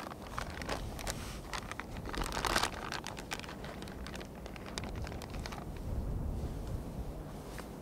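Hands rustling and fiddling with a small object: irregular light clicks with a denser crinkling burst about two and a half seconds in, over a low steady rumble.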